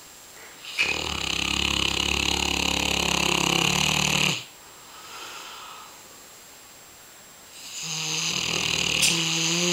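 A dog snoring loudly in its sleep: two long, rasping snores with a quieter breath between them.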